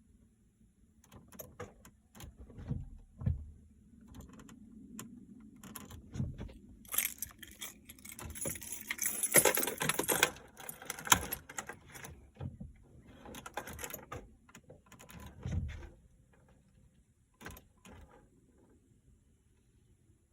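Irregular clicking and rattling from a 2012 Buick Verano that won't start, densest and loudest from about seven to eleven seconds in, with no engine cranking or running.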